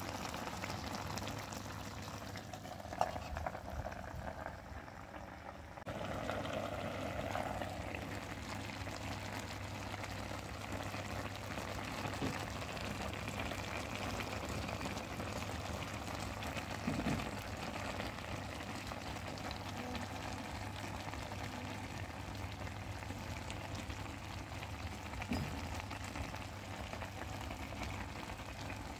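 Pork and jackfruit curry simmering in a wok, its sauce bubbling with a steady sizzling hiss that gets a little louder about six seconds in.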